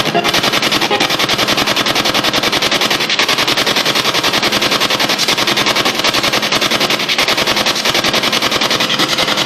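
SB7 spirit box sweeping through radio stations: loud hissing static chopped into rapid, even pulses many times a second.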